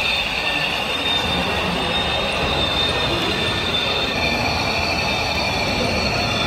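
Steady high-pitched whine of small electric motors and gears on RC model vehicles, several tones held over a constant rushing noise.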